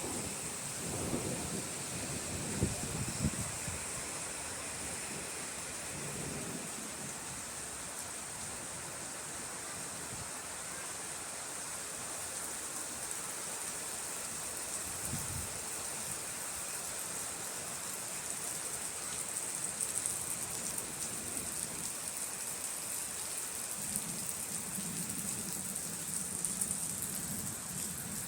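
Steady rain with thunder rumbling low several times: in the first few seconds, once about fifteen seconds in, and again near the end.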